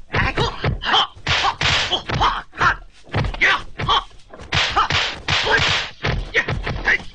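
Kung fu film fight sound effects: a quick run of punch and kick impacts, whacks and thuds landing two or three times a second.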